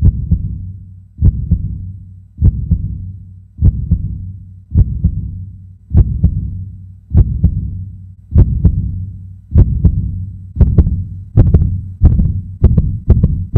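Heartbeat sound effect: pairs of deep thumps, each fading away, about one beat every second at first and quickening over the last few seconds.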